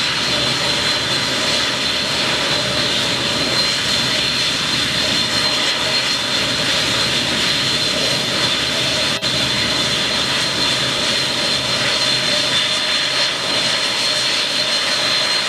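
Four Rolls-Royce RB211 turbofans of a Boeing 747-400 running at low taxi power: a steady high fan whine over an even rushing jet noise.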